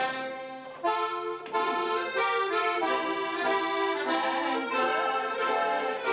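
Accordion playing a tune with held chords and melody notes, starting abruptly and filling out about a second in.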